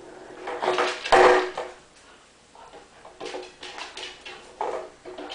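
Skateboard rattling and rolling on a concrete floor under a puppy's paws, in uneven bursts, with one loud knock about a second in.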